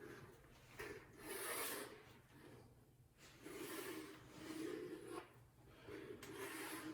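Repeated rubbing strokes, each about a second long and coming roughly every second and a half, typical of hand work on a vinyl floor repair.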